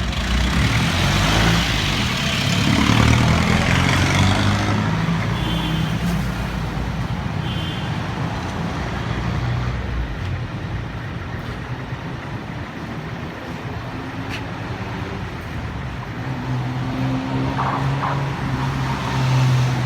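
Road traffic: motor vehicle engines running and passing. A louder pass comes in the first few seconds, and a steady engine hum returns near the end.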